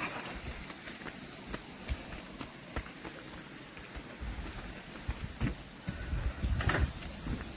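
Footsteps crossing a suspension footbridge: irregular knocks, two or three a second, over a steady hiss. A low rumble joins about six seconds in.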